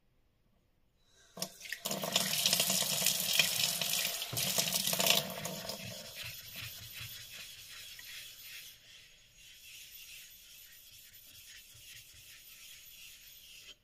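Wet scraping as a flat block is rubbed back and forth across a wet Japanese natural whetstone (Ohira Renge Suita, about 8k grit), loudest in the first few seconds. It then gives way to quieter, evenly repeated strokes of a kanna plane blade being honed on the same stone, which stop suddenly at the end.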